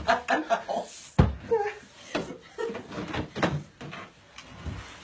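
A broom knocking several times against a tiled bathroom floor, the sharpest knock about a second in, with voices talking and laughing under it.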